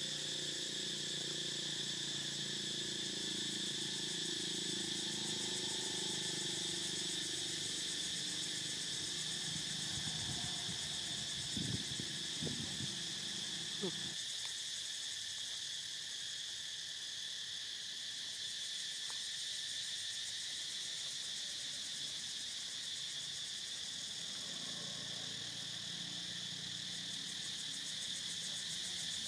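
Steady high-pitched drone of an insect chorus, unbroken throughout. A few short, low sounds stand out about halfway through.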